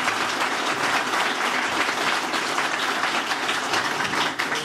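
A large audience applauding with dense, steady clapping.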